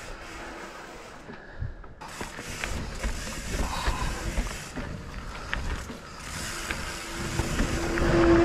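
Mountain bike rolling down a steep dirt trail: tyre noise on dirt with frequent small clicks and knocks from the bike rattling over rough ground, and wind on the microphone. It grows louder near the end, where a steady low hum sounds briefly.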